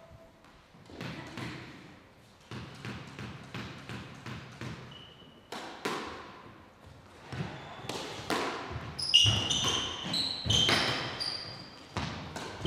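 Squash ball knocks and racket strikes, a string of sharp impacts that gets busier in the second half as a rally is played. Sneakers give short squeaks on the court floor, several of them near the end.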